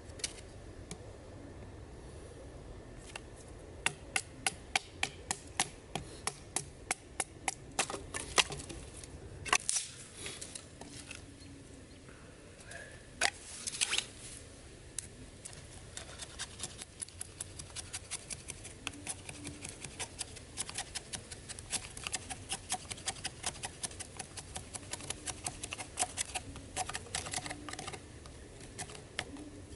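Knife blade shaving thin curls down a dry split stick to make a feather stick: a run of short, sharp scraping strokes, about two a second in the first third, then faster, three or four a second, through the second half, with a few louder knocks of wood midway.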